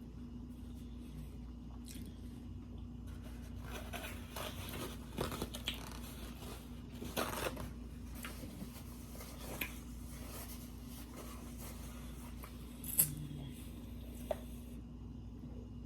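Close-up eating sounds: chewing and crunching of tacos, with scattered small clicks and wet mouth noises and one sharper click late on, over a steady low hum.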